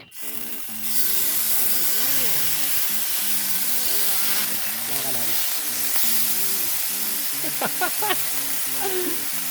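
Food sizzling loudly in a hot pan, starting suddenly about a second in and then holding steady.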